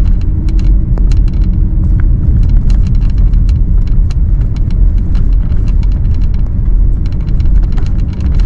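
A car driving: a loud, steady low rumble with frequent small rattles and clicks.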